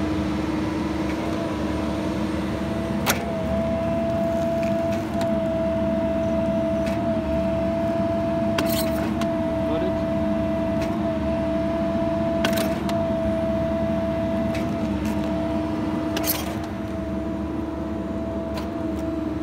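Hydraulic power unit of a Roddie pipe bursting system running with a steady hum, its pitch dipping briefly every two seconds or so. A few sharp clicks sound over it.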